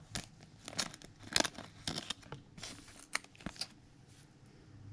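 Trading cards being handled: a quick run of short crinkles and flicks of cards and plastic, which dies down after about three and a half seconds.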